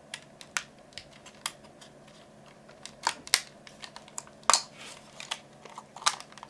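Irregular sharp plastic clicks and taps from hands working a Nikon Coolpix 2000 compact digital camera, its doors and buttons clicking. The loudest clicks come about three seconds in and again near four and a half seconds.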